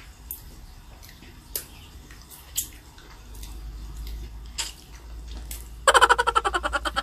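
Wet sucking and chewing clicks of a person eating a sour lemon slice. About six seconds in comes a loud, rapidly pulsing vocal sound from her as a reaction to the sourness.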